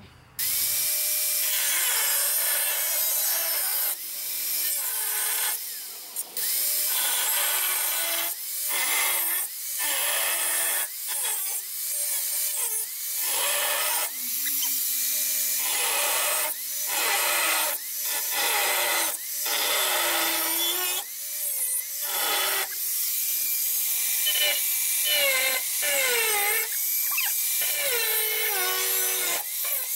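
A power tool's cut-off wheel cutting through truck cab sheet metal just inside the spot welds of the inner rocker panel. It starts about half a second in and runs in long passes with short breaks, its whine dipping in pitch and recovering as the wheel bites into the steel.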